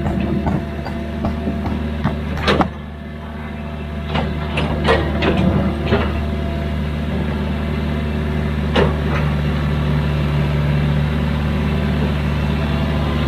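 Excavator's diesel engine running steadily under load, with sharp metallic clanks and knocks from the machine working: one about two and a half seconds in, a cluster a little later, and another near the middle.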